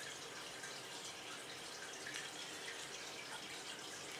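Aquarium filter's steady trickle of water, a faint even hiss.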